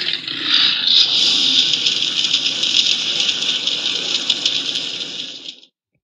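Dragon fire-breath sound effect: a long, steady rattling hiss, cutting off sharply near the end.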